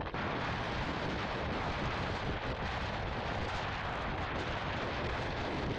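Steady wind rush buffeting a GoPro's microphone on a KTM 390 Duke cruising at about 100 km/h, with the bike's single-cylinder engine running underneath.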